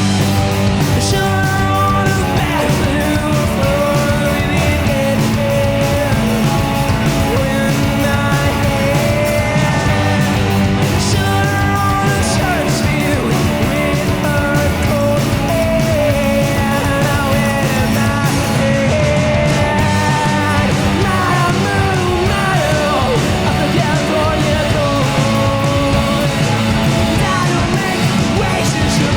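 Rock band playing live: distorted electric guitar, bass and drums at full volume.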